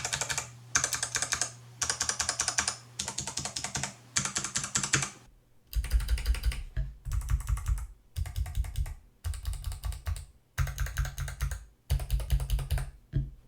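Typing on a Tofu60 custom mechanical keyboard with stock Kailh Box Jade clicky switches, in about ten quick bursts of rapid keystrokes with short pauses between them. About halfway through the sound turns fuller and bassier as the recording switches to the other microphone.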